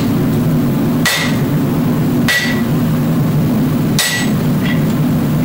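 Hand hammer striking a glowing Damascus steel billet on an anvil: three heavy blows about a second apart, each with a short metallic ring, then a lighter tap. A steady low drone from the lit forge runs underneath.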